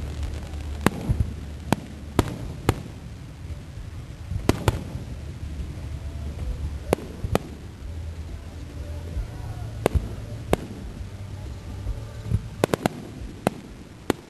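Aerial fireworks going off: sharp, irregularly spaced bangs, with a quick run of reports near the end, over a steady low rumble.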